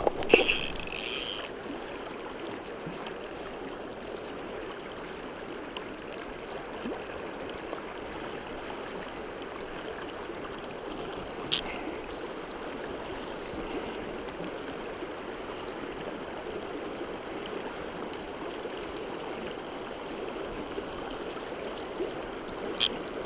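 Steady rush of the shallow Madison River's current flowing over gravel around the wading angler. Near the start a brief rasp as fly line is pulled off the reel, and two short sharp clicks, one near the middle and one near the end.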